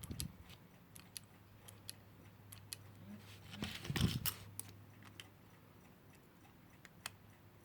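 Faint, steady low hum of a synchronous electric clock motor, with scattered light metallic clicks and ticks from the clock movement being handled, a small cluster of them about four seconds in.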